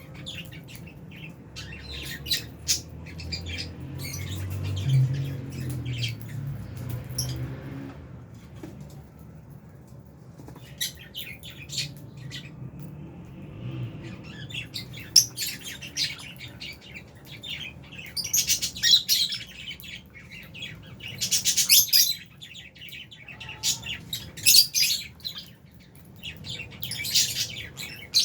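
A flock of lovebirds, including Fisher's lovebirds, chirping and squawking in quick shrill bursts, which come in dense loud clusters in the second half. A low rumble sits under the first several seconds.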